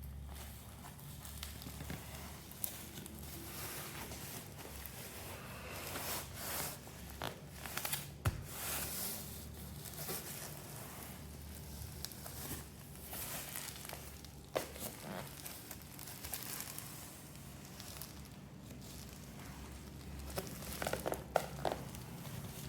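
Parcel packaging being handled and unwrapped: irregular crinkling and rustling of wrapping, with scattered clicks and knocks.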